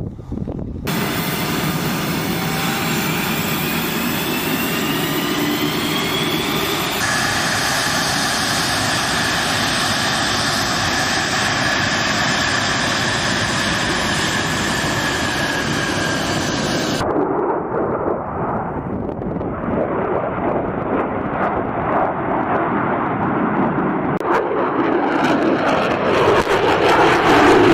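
F-35 fighter jets' Pratt & Whitney F135 engines at takeoff power. A rising whine gives way to a steady high whine, then abruptly to a coarse, crackling jet rumble that grows louder near the end.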